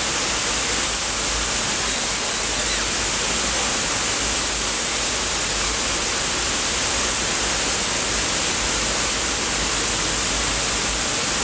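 Steady rushing of a waterfall pouring into a pool, an even hiss with no breaks.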